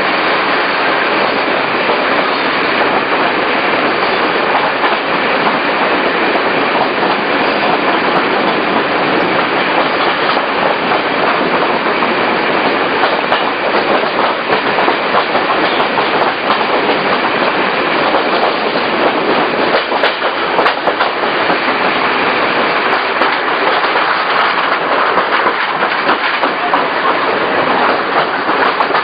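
Regional passenger train running along the track: a steady, loud rolling noise with scattered clicks of the wheels over the rails.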